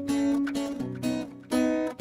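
Background music: strummed acoustic guitar, with chords changing about every half second.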